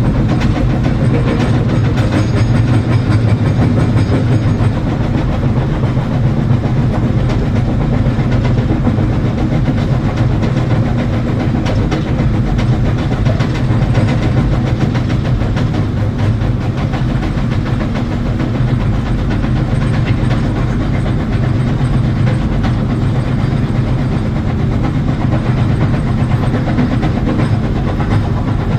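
Excavator's diesel engine running steadily, with a light clatter of small clicks and knocks throughout.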